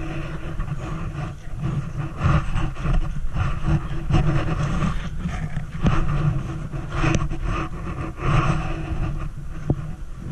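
Rumbling handling noise from a handheld camera carried by someone walking, with uneven swells and a few sharp knocks, over a faint steady hum.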